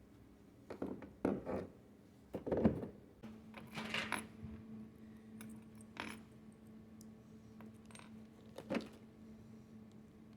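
Small hard parts of a bar gun handle and stem plunger assembly being handled and fitted together: a string of light clicks and knocks, the loudest about two and a half seconds in, then single knocks every couple of seconds. A faint steady hum comes in about three seconds in.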